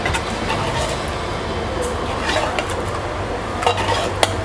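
A steel ladle stirring thin dal in an aluminium pressure cooker: the liquid swishes, and the ladle knocks against the pot a few times, most sharply about four seconds in. A steady low hum runs underneath.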